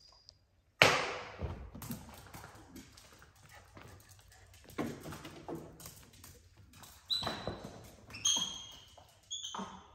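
A sudden loud noise about a second in, then several short high-pitched calls near the end from a pet monkey: an alarm signal that it has spotted something outside.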